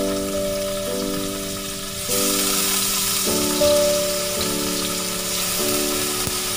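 Blocks of beancurd sizzling as they shallow-fry in hot oil in a nonstick pan, the hiss growing louder about two seconds in, over background music.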